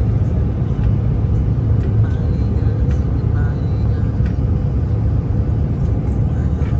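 Airliner cabin noise during the climb after takeoff: a steady low rumble of jet engines and rushing air.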